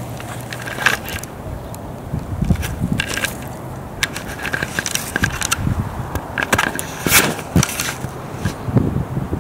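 Irregular crunching, crackling and scraping of dry bark mulch and twigs right at the microphone, with scattered knocks, as the camera lying in them is picked up and handled.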